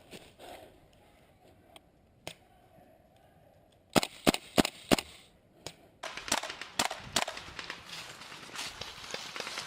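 Airsoft gun firing four sharp shots in quick succession about four seconds in, each roughly a third of a second apart. From about six seconds there is a dense run of smaller clicks and crackle.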